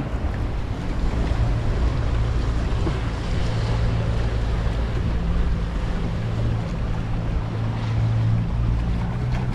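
Wind buffeting the microphone over choppy water lapping around a kayak, with the steady low drone of a motorboat engine nearby that grows a little louder near the end.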